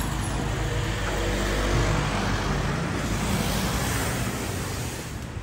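Road traffic passing close by: a steady rush of tyre and engine noise with a low rumble that fades near the end.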